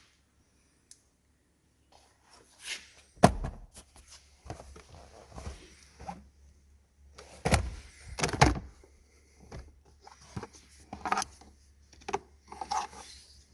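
Car parts being handled: a series of thunks, clicks and rattles. The loudest knock comes about three seconds in, with two more heavy thunks a little under a second apart around the middle.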